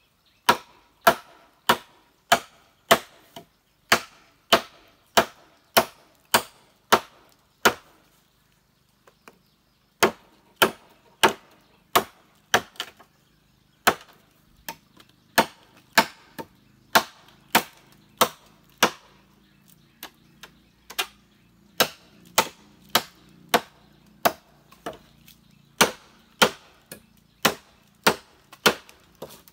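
Machete chopping into a green bamboo pole: sharp strikes about twice a second, with a pause of about two seconds near a third of the way in.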